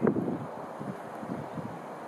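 Wind buffeting the microphone: an uneven low rush in ragged gusts, loudest at the very start and easing after about half a second.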